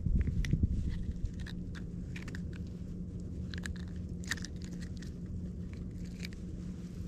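Scattered small clicks and crackles of a caught snook being handled and unhooked by hand, over a faint steady low hum. A low rumble fades out about a second in.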